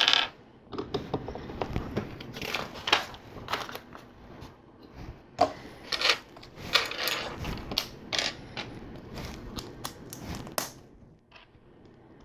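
LEGO plastic bricks being handled and pressed together: an irregular run of small plastic clicks and rattles, thinning out near the end.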